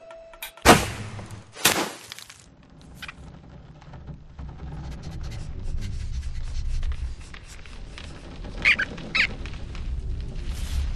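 Cartoon sound effects: two sharp thunks about a second apart, then a run of faint ticks and creaks over a low rumble, with two short squeaks near the end.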